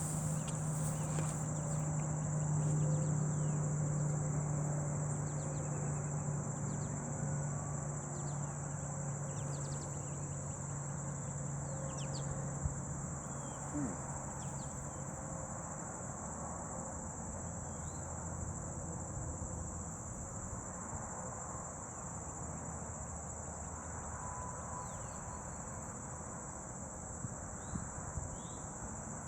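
A steady high-pitched chorus of insects, with a low hum of honey bees flying at the swarm that fades out about halfway through. Short bird chirps come and go over it.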